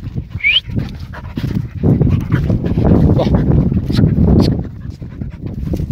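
A hunting dog panting. About half a second in there is a short rising chirp.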